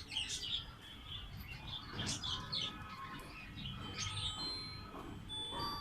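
Birds chirping and calling, many short overlapping chirps with a few brief whistled notes near the end.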